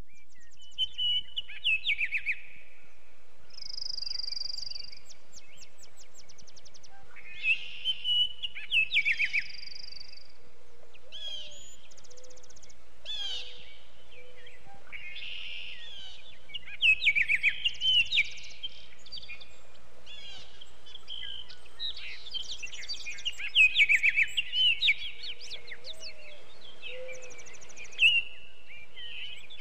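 Several songbirds singing: short chirps, quick trills and whistled notes in phrases with pauses between them, over a faint steady background hiss.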